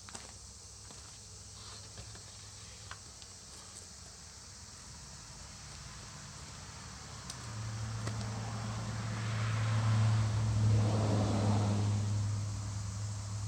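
A 1957 David Bradley two-stroke chainsaw running on its own with a steady hum. The engine grows much louder about seven and a half seconds in and eases a little near the end. The old saw runs but doesn't reach full speed.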